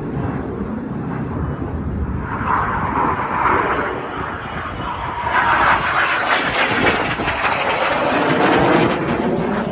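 Display aircraft flying past at an air show: engine noise swelling from about five seconds in, loudest near the end, then dropping away.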